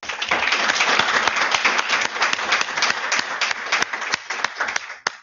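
Audience applauding, starting abruptly and thinning out to a few last separate claps near the end.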